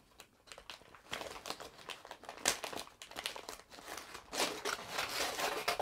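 Scissors cutting along the edge of a mailing bag, with the bag crinkling and crackling as it is held and cut. The sound is irregular, quiet at first and busier over the last second and a half.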